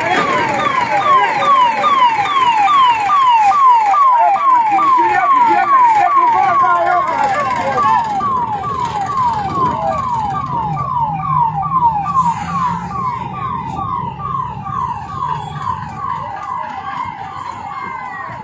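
Emergency vehicle siren sounding a fast repeating pattern of falling notes, about two a second. It is loudest in the first few seconds and fades toward the end, as if the vehicle is moving away.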